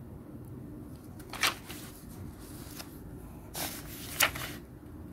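Quiet room tone with three brief soft rustles, about a second and a half in and twice near the end.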